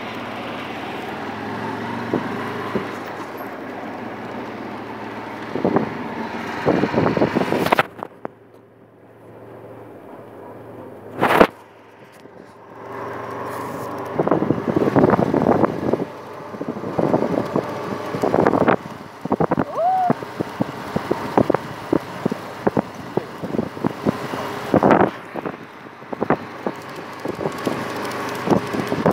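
A motor vehicle runs along a rough road with a steady engine and road noise, broken by frequent irregular knocks and rattles. The noise drops for a few seconds about eight seconds in.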